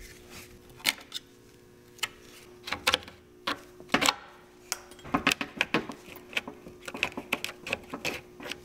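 Irregular clicks and scraping of a small screwdriver prying retaining clips off a radiator's plastic end tank. The clicks come in clusters and grow denser in the second half, over a faint steady hum.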